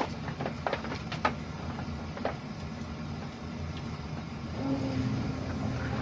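A few sharp clicks and knocks in the first two seconds, then a steady hum starts about four and a half seconds in and keeps going: an electric utility pump starting up to circulate vinegar through a tankless water heater and descale it.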